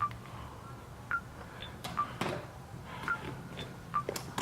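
A series of short, high electronic beeps, about one a second, with a couple of sharp handling clicks in the middle.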